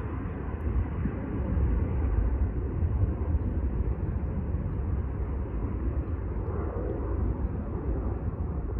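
Distant jet airliner engines, a steady low rumble that swells slightly in the first few seconds and then holds even.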